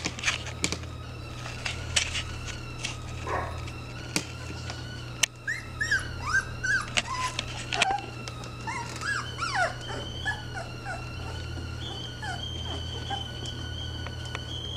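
Three-week-old Airedale Terrier puppies whimpering in a run of short, high squeaks that rise and fall, thickest in the middle, with scattered clicks and knocks.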